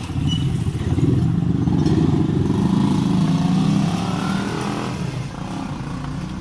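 A motorcycle engine running, swelling about a second in and easing off after about four seconds, as of a bike passing by.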